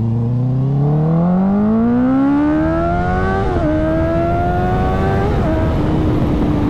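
Honda CBR650R inline-four through its Akrapovic exhaust accelerating hard, the engine note climbing in pitch, dipping at two quick upshifts about three and a half and five and a half seconds in, then settling to a steady cruise, with wind rushing past.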